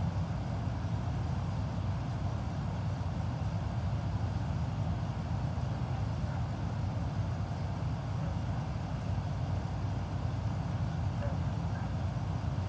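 Steady low background rumble, even throughout, with no distinct knocks or other events.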